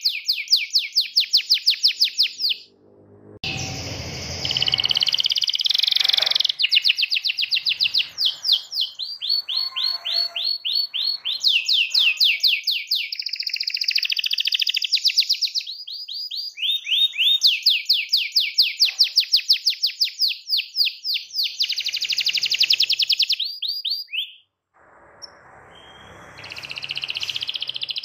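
Domestic canary singing a long run of fast rolling trills, rapid repeated high notes, the vigorous full song of a bird in song. The song breaks off briefly about two and a half seconds in and again near the end.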